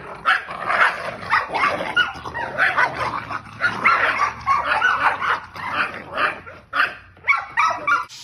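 American pit bull terrier puppies barking and yipping in rapid, repeated bursts as they jump and snap at a toy dangled above them.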